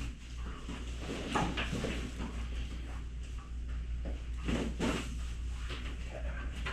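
Scattered soft knocks and rustling from a patient's body and limbs being moved on a chiropractic treatment table, over a steady low room hum.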